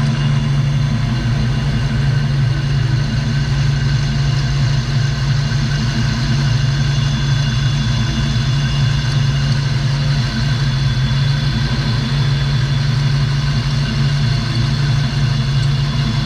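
Fox-body Mustang V8 idling steadily after its timing chain, harmonic balancer and gaskets were replaced: running fine with an even idle.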